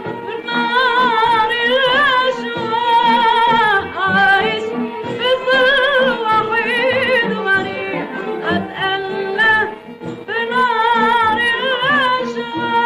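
Old, narrow-band recording of a classical Arabic song: a woman sings long, ornamented melismas with heavy vibrato over instrumental accompaniment.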